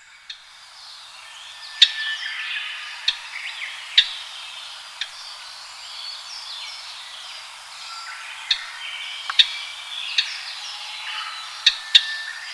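Japanese grosbeaks calling: many short, overlapping whistled and chattering notes, with sharp clicks scattered through, about ten in all. The sound fades in at the start.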